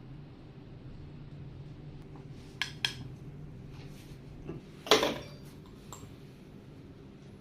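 Cupping cups clinking and knocking a few times: two light clicks and then a louder clink about five seconds in, over a low steady hum.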